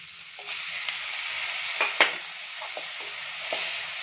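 Chopped tomatoes and onions sizzling in hot oil in an aluminium kadai, stirred with a perforated steel ladle that scrapes the pan. The sizzle swells about half a second in, and two sharp metal clinks come about two seconds in.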